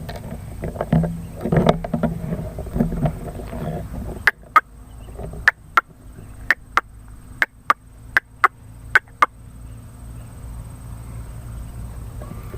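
A bird giving a quick series of short, sharp calls, about a dozen in five seconds, starting about four seconds in, over a low steady hum.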